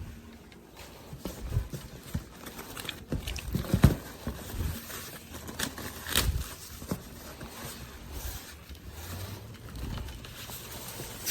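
Packing and parts being handled in a cardboard box during unpacking: irregular knocks and thumps with rustling and scraping, the loudest knocks about four and six seconds in.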